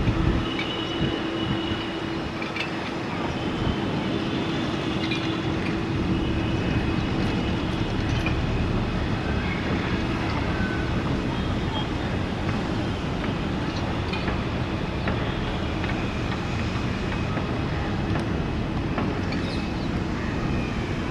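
Steady low rumble of a distant Boeing 787-8's jet engines at taxi power, with faint high tones coming and going over it.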